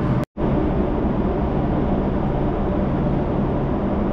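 Steady rumble of vehicle traffic on the concrete bridge deck overhead, with a low, even hum, broken by a brief dropout to silence just after the start.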